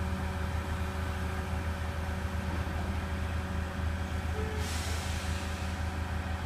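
Truck crane's diesel engine running steadily, a low even hum holding its load. A steady high hiss starts suddenly about two-thirds of the way in.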